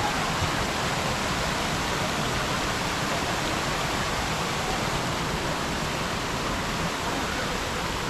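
Water of a small waterfall rushing steadily over rocks close by and falling into a pool: an even, unbroken rush of water.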